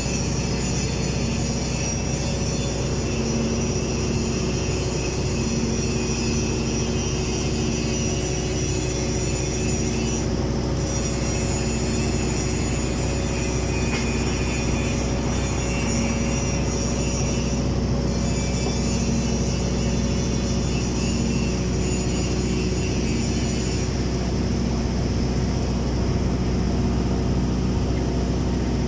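Submerged-arc automatic girth welding machine running on a tank's horizontal seam: a steady hum with a high whine over it.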